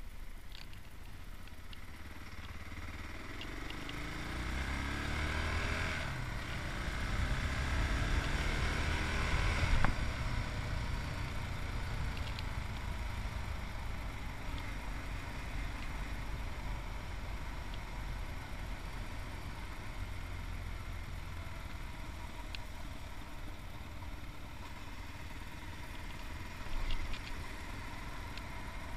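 Yamaha MT-03's 660cc single-cylinder engine under way, its note rising as it accelerates from about 3 to 10 seconds in, with a gear change partway through, then holding steady at a cruise.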